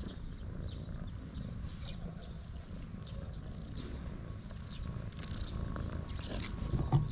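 Brown tabby-and-white cat purring steadily, a low, fast rumble close to the microphone, as a hand strokes its head, with soft rustles of fur under the hand and a bump just before the end.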